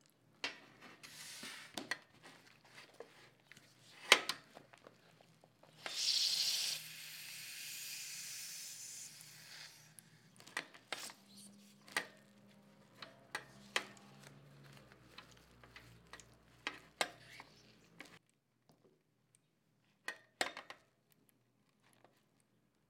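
Hands kneading and twisting a cloth bundle of steamed glutinous rice dough on a wire rack: cloth rustling with many small taps and clicks. About six seconds in a louder hiss starts, then settles to a softer steady hiss before stopping a few seconds later.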